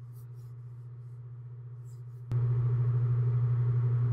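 A steady low hum that jumps abruptly much louder, with a click, a little over two seconds in.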